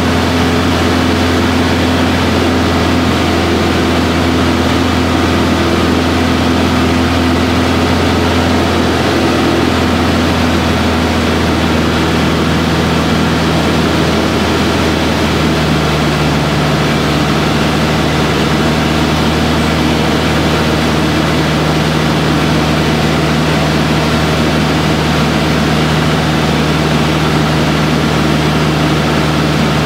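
Single-engine Aero Boero AB-115's four-cylinder piston engine and propeller droning steadily in the cockpit during the climb after take-off. The engine note shifts slightly about ten seconds in.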